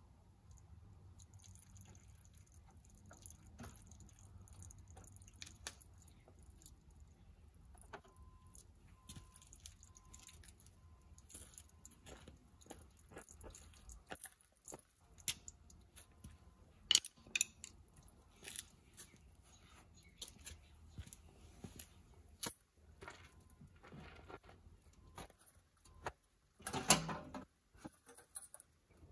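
Metal hand tools clinking and tapping on tractor parts in scattered clicks and knocks, with a louder rattle near the end.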